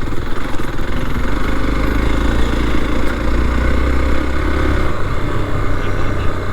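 Motorcycle engine running steadily at low speed, a continuous low rumble.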